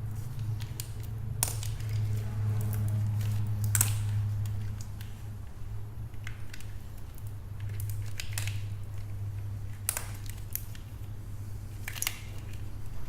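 Plastic wiring-harness connectors and clips being unclipped and handled: a scattering of sharp clicks and crackles over a steady low hum.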